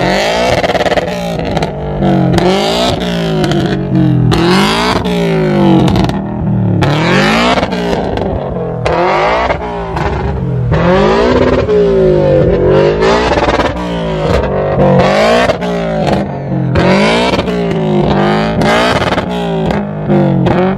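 A car engine revved over and over, its pitch climbing and dropping back about once a second.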